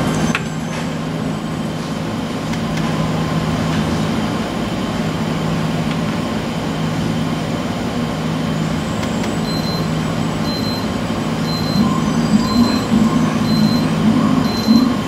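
Steady rushing noise with a constant low hum from a stage sound cue; about two-thirds of the way in, a short high electronic beep starts repeating about once a second.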